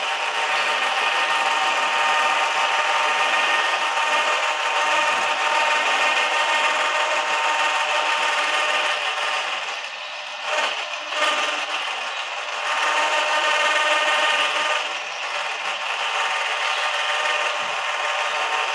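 Boat winch running steadily, paying out its steel cable as a boat is lowered down a ramp. The sound is a continuous mechanical whine and grind that dips and wavers briefly about ten seconds in.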